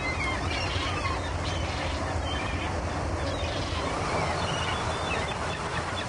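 Steady rushing of wind and sea water past a moving ship, with a constant low rumble underneath. A few faint, short high chirps come and go over it.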